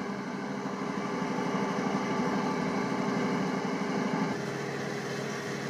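Lidded stainless-steel idli steamer heating on a gas stove while its contents steam, giving a steady humming buzz that grows a little louder about half a second in and eases off after about four seconds.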